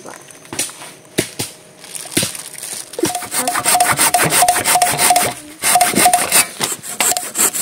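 Hand saw cutting through a small log, rasping back and forth at about three strokes a second, starting about three seconds in after a few scattered knocks.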